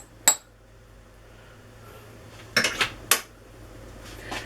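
A metal spoon clinking against dishes a few times, sharp clinks with a short ring: cutlery and crockery being handled while butter is scooped out.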